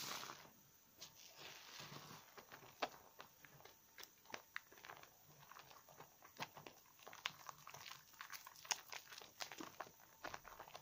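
A wet bar of soap and a foam sponge being squeezed and rubbed by hand in thick lather. Soft wet squelching, with many small irregular crackles and pops from bursting bubbles.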